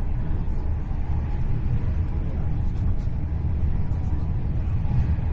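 Steady low rumble of a Hitachi Class 800 intercity train running along the line, heard from inside the passenger coach.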